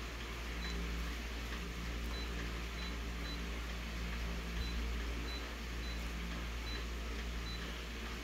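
An office colour copier's touchscreen gives short, high beeps as its on-screen buttons are pressed, about nine of them at uneven intervals, over a steady low machine hum.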